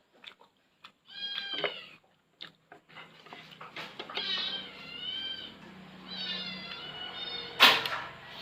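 A cat meowing several times: a short meow about a second in, then longer, wavering meows in the second half. A sharp knock comes near the end.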